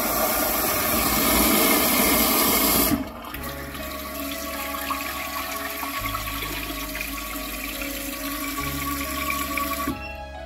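Pump-assisted smart toilet flushing: a loud rush of water that drops off sharply about three seconds in. Quieter running water follows in the bowl.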